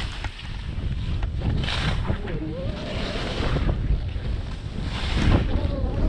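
Wind buffeting the microphone with a steady low rumble, over the hiss of skis turning through snow, which swells with each turn about every one to two seconds.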